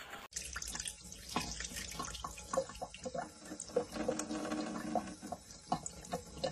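Kitchen tap running a thin stream of water into a sink, with irregular splashing as a cat licks and drinks from the stream.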